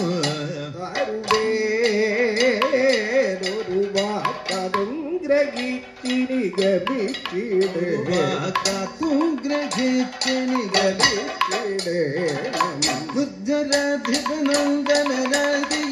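Kathakali music: vocalists sing a padam in a wavering, heavily ornamented melody, over drum strokes and the bright clash of metal percussion keeping time.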